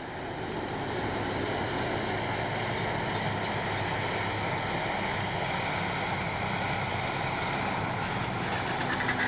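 Steady rushing noise of wind on the microphone, with the faint hum of the E-flite Piper Cherokee RC plane's electric motor in flight. Near the end a thin whine comes in and rises slowly in pitch.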